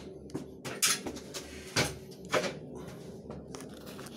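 Handling noise: a run of sharp clicks and rustles, about six in four seconds, over a faint steady hum.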